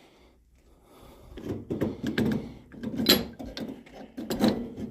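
A large wrench turning a threaded fitting on a steam boiler, irregular scraping and creaking of metal under strain, with two sharp knocks, one about three seconds in and one near the end.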